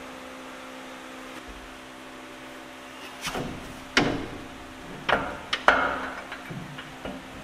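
A run of about seven sharp knocks and clanks, starting about three seconds in, as heavy suspension hardware and tools are handled while the truck's rear leaf spring is put back together. A faint steady hum lies underneath.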